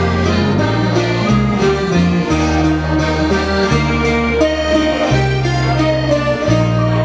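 Live traditional folk tune played on a piano accordion over strummed acoustic guitars, with held accordion notes changing every second or so above a steady strummed beat. No voice is singing.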